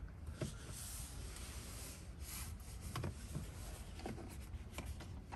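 Faint rustling and rubbing with a few light clicks: a person shifting in a car seat and handling the interior.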